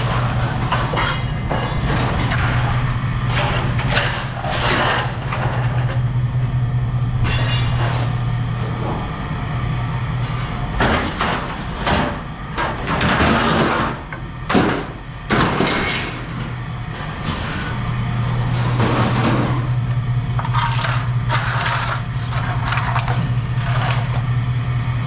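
A steady mechanical hum, like an idling engine, runs under repeated clanks and knocks of scrap metal being handled; the hum drops away for several seconds midway while the clanking is thickest.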